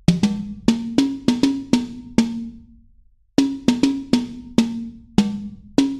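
Percussive music: a drum with a clear low note struck in quick, uneven runs, with a pause of about a second midway.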